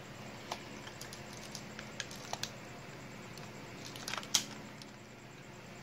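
Faint handling noise of an airsoft rifle being turned over in the hands: scattered small clicks and rubs, with one louder click and rustle about four seconds in, over a faint steady hum.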